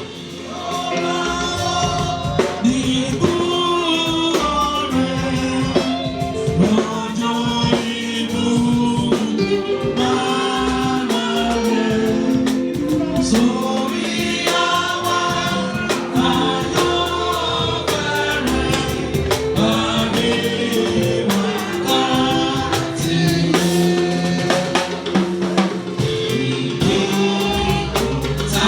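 A congregation or choir sings a Yoruba hymn in unison, with a drum kit keeping a steady beat and a bass line underneath.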